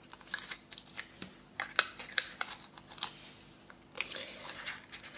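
Paper and cardstock crinkling with small clicks and ticks as foam adhesive pads are peeled from their sheet and pressed onto the back of a die-cut paper flower. The sounds are short and irregular, with a brief lull a little before the end.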